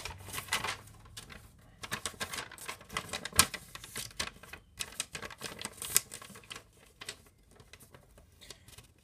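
Packaging being handled: an irregular run of small clicks and light crinkles, loudest about three and a half and six seconds in, thinning out near the end.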